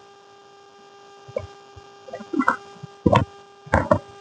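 Steady electrical mains hum, with about five short, sharp noises scattered through the second half.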